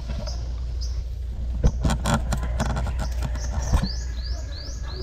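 Outdoor ambience: a steady low rumble with a few sharp clicks or knocks in the first seconds, then, from a little past halfway, a series of short, high, rising chirps repeating about two or three times a second, most likely a bird calling.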